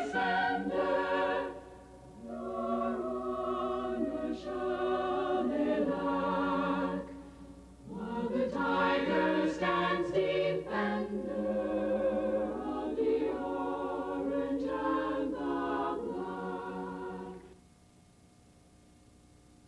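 A choir singing in phrases with short breaks between them, stopping near the end and leaving only a faint hiss.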